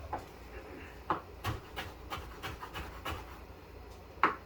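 Kitchen knife chopping fresh thyme on a cutting board: short, uneven knocks of the blade hitting the board, about three a second, with one louder knock near the end.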